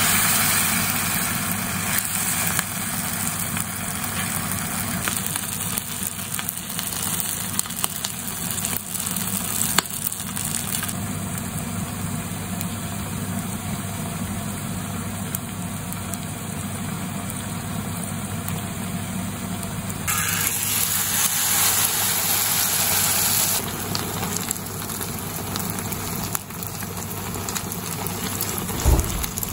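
Tempura-battered food deep-frying in a pan of hot oil: a steady sizzle of bubbling oil around a hayashi-rice ball, later a piece of baumkuchen. The sizzle changes abruptly about 11 and 20 seconds in.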